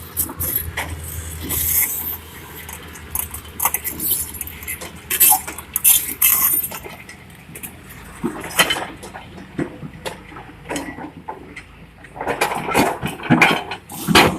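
Machine engine running with a low hum under irregular metallic clattering and scraping, loudest in a cluster near the end.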